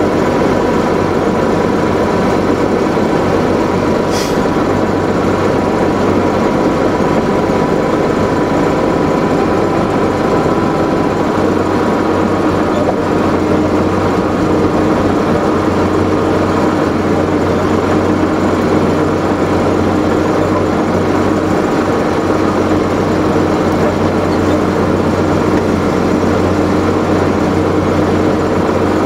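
A vehicle's engine running steadily as it drives slowly, heard from on board as a constant drone with a low hum. A single short click about four seconds in.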